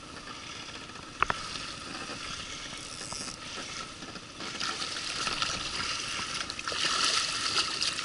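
Fast river current rushing and splashing around a small boat, growing louder and hissier from about halfway through, with one sharp knock about a second in.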